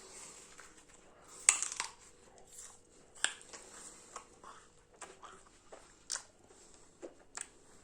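Crisp apple bitten and chewed close to the microphone: a handful of sharp crunches, the loudest about a second and a half in, with softer chewing between.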